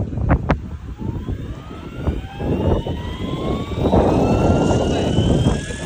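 Scale RC helicopter spooling up for takeoff: the rotor motor's whine rises steadily in pitch as the main rotor gathers speed, with a rushing rotor noise building under it. A couple of sharp clicks come just before the whine starts.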